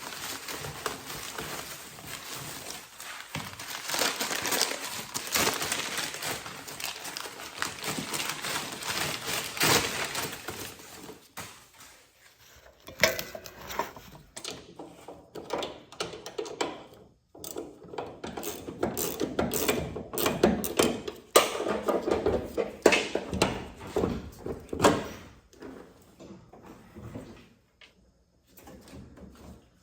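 Packaging rustling and crinkling for about twelve seconds as the new door hinges are unwrapped. Then irregular clinks and knocks of metal hardware being handled and set down, thinning out near the end.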